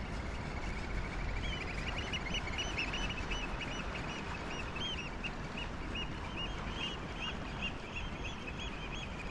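A group of birds calling: many short, high notes that rise and fall, repeated rapidly in overlapping runs, over a low steady rumble.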